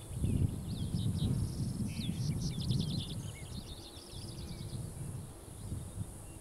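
Small birds chirping and calling, with a rapid trill about two to three seconds in, over a low gusting rumble of wind on the microphone.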